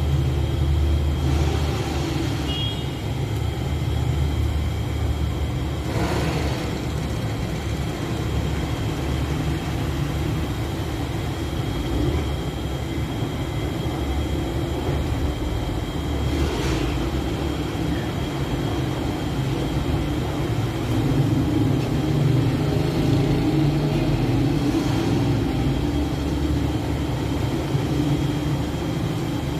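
Steady low rumble of a gas-fired rotating tandoor oven running, with a steady high whine on top. A few soft knocks come through about a third of the way in, around the middle and near the end.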